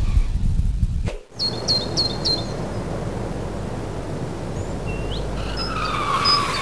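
Low rumble of a jet airliner that cuts off suddenly about a second in. Then comes steady outdoor ambience with birds: three quick chirps, then scattered whistled calls toward the end.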